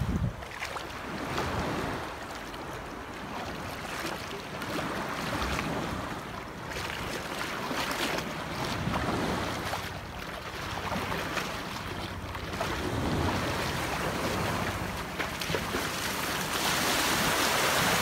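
Small ocean waves washing over the shallows in surges that rise and fall every few seconds, with wind blowing across the microphone.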